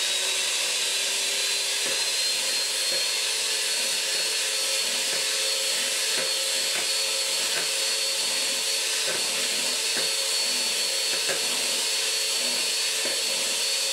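Electric hand mixer running steadily, its beaters whisking eggs and honey in a plastic bowl. The motor gives a steady whine that creeps slightly higher in pitch, with occasional light ticks.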